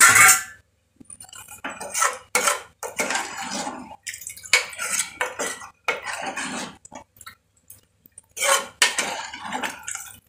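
A metal ladle scraping and clinking against the inside of a metal pressure cooker as a thick chicken curry is stirred, in irregular strokes with short pauses. A loud clank comes right at the start.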